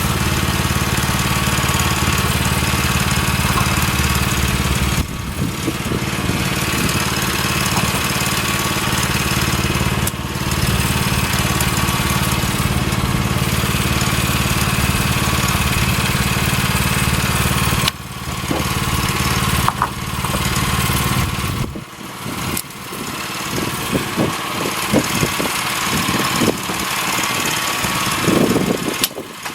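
Small gasoline engine of a Woodland Mills portable sawmill running steadily, with abrupt breaks in the sound. About three quarters of the way in, the steady low engine note gives way to choppier, uneven sound.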